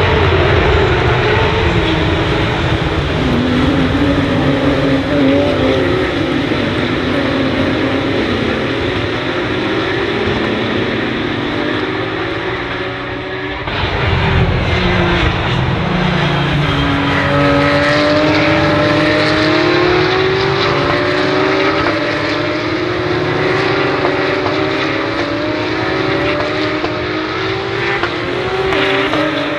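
Porsche 911 GT3 Cup race cars' naturally aspirated flat-six engines running hard, several at once, their pitch rising and falling through gear changes and pass-bys. A brief dip and then a sudden louder surge about halfway through.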